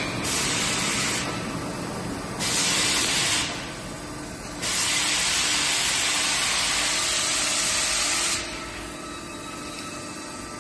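Bystronic fiber laser cutter's assist gas hissing out of the cutting head in three bursts: two short ones about two seconds apart, then a longer one of nearly four seconds, over a steady machine hum.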